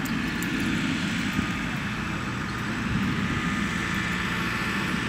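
Steady outdoor background rumble with a fainter hiss above it, unbroken and without distinct events.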